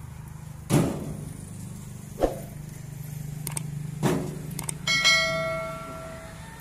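Pressed concrete blocks being unloaded by hand from a steel truck bed: three sharp knocks, then a metallic clang that rings on for about a second and a half. A low, steady engine hum runs underneath.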